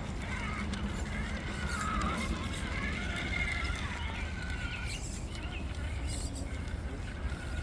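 Small 1/10-scale RC rock crawler's electric motor and gear drivetrain whining, the pitch rising and falling with the throttle as it crawls, over a steady low hum.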